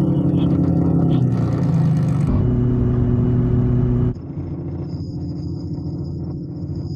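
Sports car engines running with a steady, deep rumble. The sound changes abruptly about two seconds in and again about four seconds in, becoming quieter and thinner after the second change.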